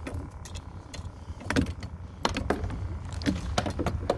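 Clicks and rattles of a landing net and a landed redfish being handled in a kayak: several sharp clicks in quick succession from about a second and a half in, over a steady low rumble.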